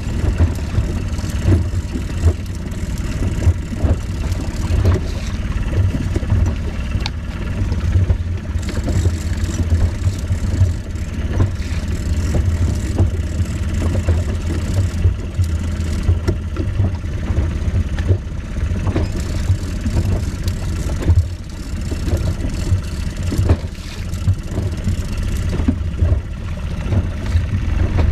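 Fishing boat's engine running steadily at trolling speed, a low rumble with frequent short irregular knocks over it.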